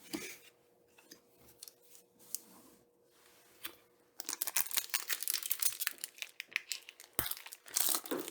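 Foil Pokémon booster pack wrapper crinkling and being torn open, starting about four seconds in after a few faint clicks.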